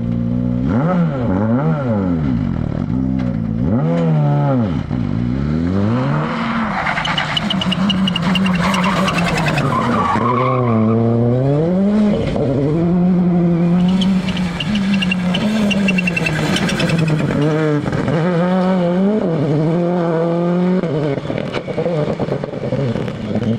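Rally car engine revving hard and dropping back again and again through the gears and corners, with tyre squeal during two slides, about a quarter of the way in and again past halfway.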